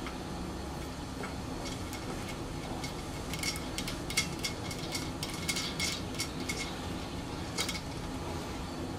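A small lag bolt being threaded by hand through an oak block into the lathe bed: a run of light metallic clicks and scrapes, busiest in the middle, over a steady low hum.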